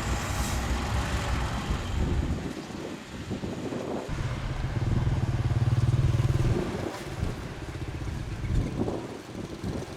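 Diesel engine of heavy earthmoving machinery running. About four seconds in it grows louder with an even low pulse for a couple of seconds, as if working under load, then eases back.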